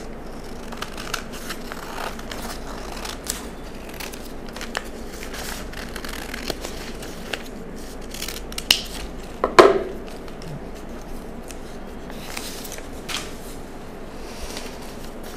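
Large scissors cutting through a stiff brown-paper sleeve pattern: repeated snips of the blades with the paper rustling and crinkling. There is one louder knock about halfway through.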